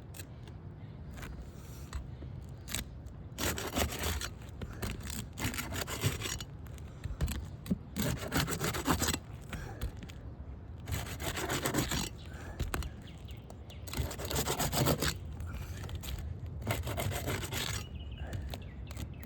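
A tool scraping under asphalt roof shingles as a damaged shingle is worked loose: repeated rasping strokes of about a second each, starting a few seconds in.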